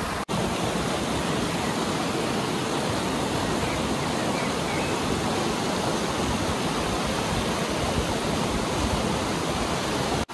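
Mountain stream rushing and splashing over rocks, a steady, even rush of water, with a brief break just after it begins.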